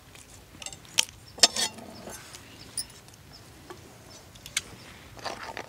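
Snail shells being cracked open with a curved knife blade on a stone slab: a handful of sharp, irregular clicks and knocks.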